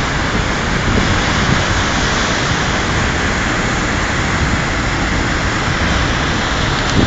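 Waterfall pouring into a rocky gorge: a loud, steady rush of falling white water.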